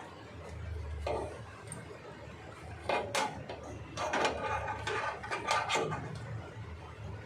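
Clicks, knocks and light rattling of hard objects being handled: one knock about a second in, then a busy run of clicks and rattles from about three to six seconds in.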